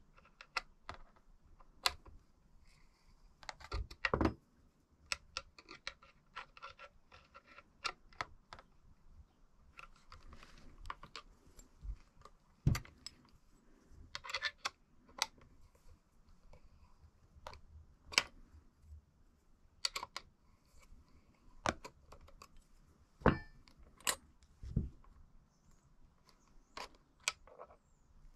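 Bearing tools and small metal parts of a bicycle's rear linkage being handled, clinking and knocking irregularly, with a few louder knocks, the loudest about four seconds in.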